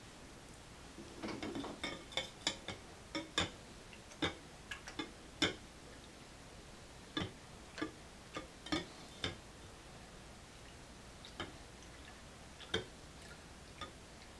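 Irregular light clicks and taps as a compensator brush is worked in and out of a Volquartsen compensator sitting in a jar of cleaning solution, scrubbing loosened lead from its ports. The taps come thickest in the first five seconds, then sparser.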